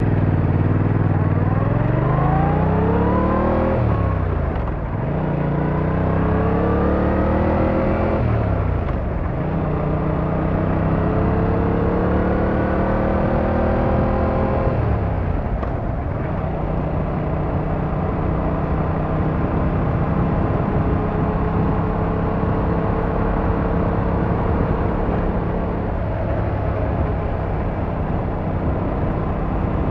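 Yamaha MT-07's 689cc parallel-twin engine accelerating through the gears. The pitch rises three times, each run cut by a sudden drop at an upshift, and after about 16 seconds it holds nearly steady at cruising speed.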